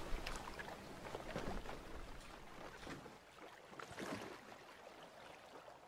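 Water lapping and splashing in soft irregular swells, fading away.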